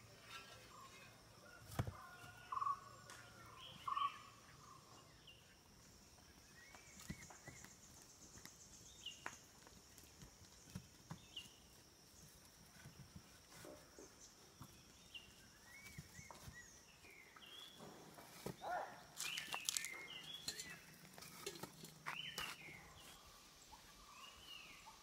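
Scattered short bird chirps, with sharp knocks of sun-dried mud bricks being set down on a stack: a few loud ones in the first four seconds and a busier run about three quarters of the way through.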